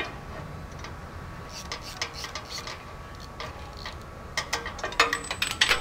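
Socket and extension turning out an exhaust manifold bolt by hand: small metal clicks and scraping, with a quicker run of sharper clicks near the end.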